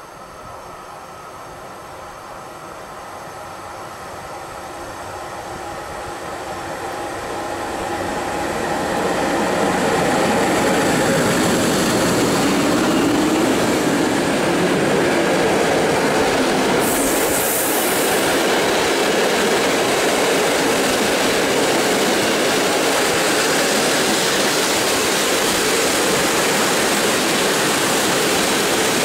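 A passenger train hauled by an EU07 electric locomotive approaches and runs past along the platform. Its rumble grows steadily over the first ten seconds, then holds as the steady rolling noise of the carriages going by. A brief high hiss comes about seventeen seconds in.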